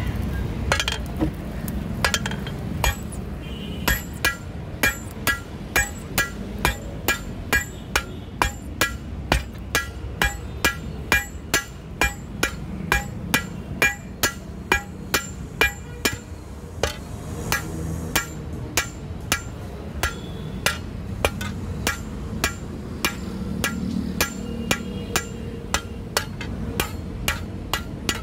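Blacksmith's hand hammer striking red-hot 20 mm rebar on a steel anvil to forge a crowbar: a steady run of ringing blows, about two a second, that thins out to scattered strikes after the middle.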